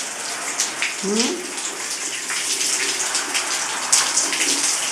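Shower spray running steadily, a continuous hiss of water with small splashes throughout.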